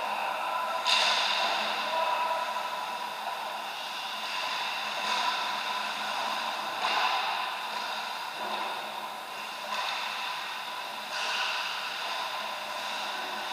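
Ice hockey rink sound during a game: a steady hum from the rink's machinery, with skates scraping across the ice several times.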